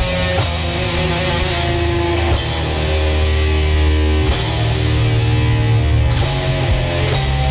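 Loud heavy rock band music: distorted electric guitars, bass guitar and drum kit, with a cymbal crash about every two seconds.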